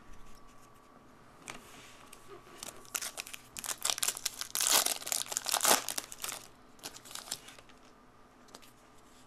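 Plastic foil wrapper of a trading-card pack being torn open and crinkled by hand, a dense burst of crackling in the middle with a few scattered crinkles before and after.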